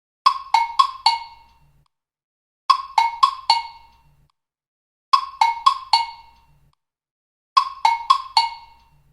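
TikTok ringtone: a short phrase of four quick, sharp, percussive pitched notes, each dying away fast, played four times about every two and a half seconds with silence between.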